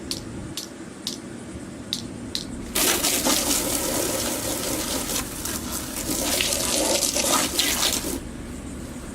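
A few light clicks, then water spraying hard for about five seconds before cutting off suddenly: a hose washing grass out of the mower's grass catcher.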